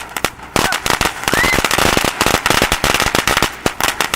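Consumer firework going off in its finale: a dense barrage of sharp crackling bangs, many a second, starting about half a second in after one opening crack.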